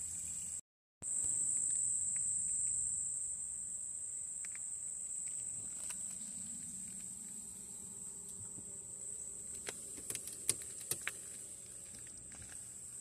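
Steady high-pitched insect chorus, with a brief dropout near the start and a few sharp clicks about ten seconds in.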